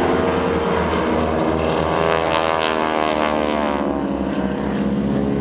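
Radial engines of two Boeing Stearman biplanes running in a formation pass overhead, a steady drone with a sweeping, phasing tone about halfway through as they go by.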